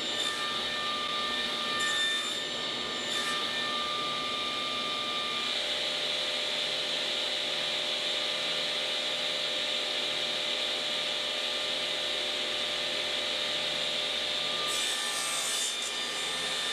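Table saw running steadily with a motor whine, crosscutting small wooden frame pieces; the blade bites through a piece about two seconds in and again near the end.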